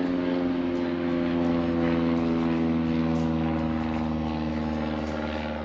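A propeller airplane flying over: a steady engine drone whose pitch sinks slightly as it passes.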